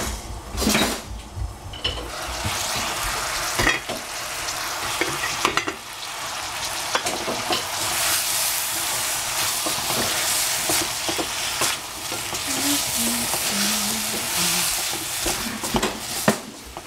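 Chunks of courgette and cranberries sizzling in a stainless steel saucepan while a wooden spatula stirs and scrapes them, with frequent clicks and knocks of the spatula against the pan. There are a few sharper knocks in the first second, and the sizzle grows steadier and stronger after that.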